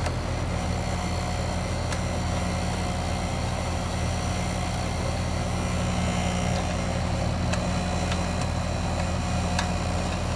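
Goodman outdoor HVAC unit running with a steady electrical hum, while the system sits with its refrigerant charge lost: the gauges read 6 psi on the high side and below zero on the low side. A few faint clicks come through over the hum.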